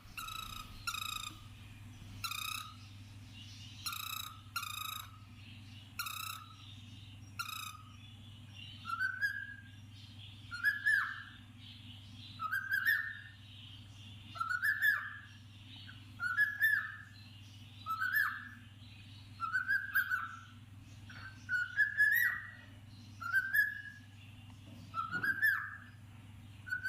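Cockatiel calling: about ten short chirps over the first eight seconds, then a long run of short whistled notes, each rising then falling, about one a second. A steady low hum runs underneath.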